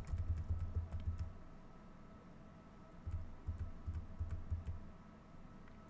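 Computer keyboard typing, faint dull keystroke thuds with light clicks, in two short runs: one right away and one from about three seconds in.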